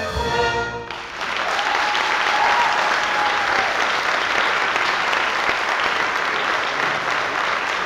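The pit orchestra's final brass-and-strings chord cuts off about a second in. The theatre audience then breaks into loud, steady applause.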